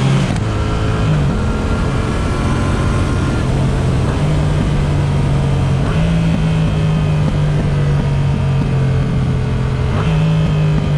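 Yamaha MT-07's parallel-twin engine running through an Akrapovic exhaust under way on the road, a steady, loud engine note that shifts in pitch a few times.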